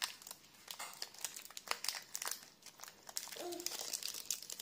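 Foil Pokémon booster pack wrapper crinkling and crackling in the hands as it is handled, in scattered small crackles.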